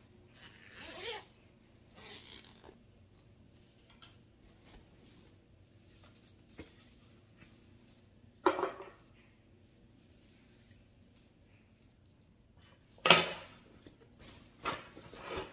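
A fabric dog carrier bag and its padded shoulder strap being handled: scattered rustles with clinks from the strap's metal snap hooks and buckle, a few separate short sounds with the sharpest one late on.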